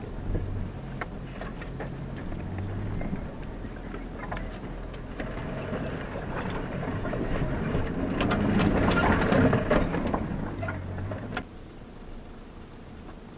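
Off-road 4x4's engine running at low speed, heard from inside the cab, with branches and brush scraping and snapping against the body and windshield. The scraping builds to its loudest past the middle, then falls away near the end as the vehicle comes clear.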